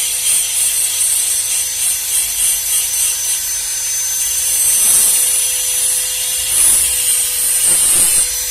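Angle grinder grinding down the flared steel mouth of a truck propeller-shaft yoke bore, its motor whining steadily. The disc's hiss comes in short repeated passes during the first few seconds, then in longer passes. The grinding trues up the flared bore so the universal-joint cross's bearing cups can seat.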